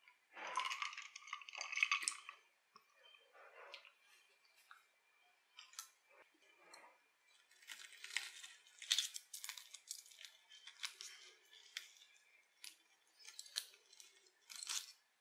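Drinking from a glass near the start, then the crispy breading of a chicken katsu cutlet crackling and crunching in quick bursts as it is cut with a fork and knife.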